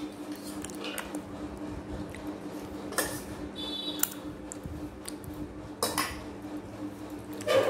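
Metal dishes and utensils clinking and knocking on a table now and then, over a steady low hum.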